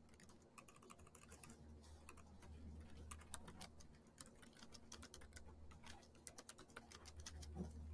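Faint typing on a computer keyboard: a run of quick, irregular keystroke clicks.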